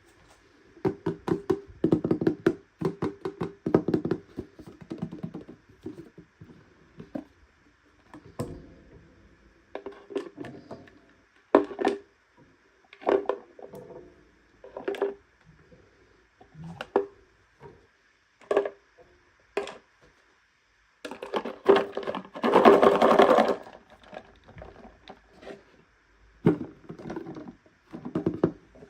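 Toy packaging being handled and opened up close: a run of small clicks, taps and scrapes, with a louder, longer rustle about three-quarters of the way through.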